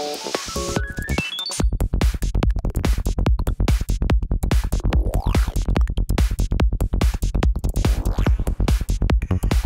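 Psytrance dance music. A rising synth arpeggio climbs steeply over about the first second while the low end drops out. About a second and a half in, the kick drum and a fast pulsing bass come back in, with sweeping synth effects over them.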